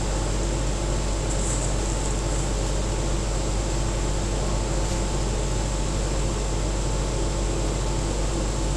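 Steady background hum and hiss with a low drone, unchanging throughout.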